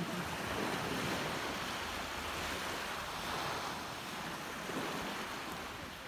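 Black Sea surf: small waves breaking and washing up a sandy beach, a steady rushing wash.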